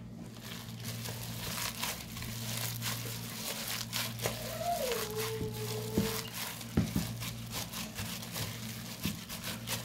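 A hand in a plastic bag kneading and mashing spiced minced meat mixed with rice flour in a plastic bowl: the plastic crinkles and crackles, with soft squishing, over a steady low hum. A short tone falls and then holds about five seconds in.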